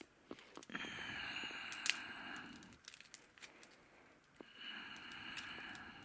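Small wood fire in a wood stove crackling with scattered sharp pops, with two hissing rushes of about two seconds each, the first near the start and the second near the end.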